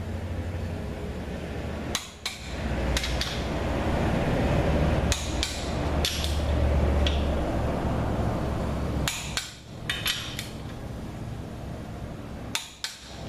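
Scattered sharp metallic clicks and knocks from engine parts and hand tools being handled on a bench, some ringing briefly.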